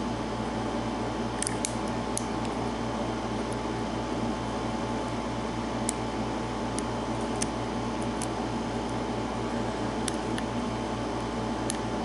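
Faint, irregular little metallic clicks of a hook pick working the pins inside a brass padlock's pin-tumbler cylinder under tension, as it searches for a hard-to-set pin, over a steady background hum.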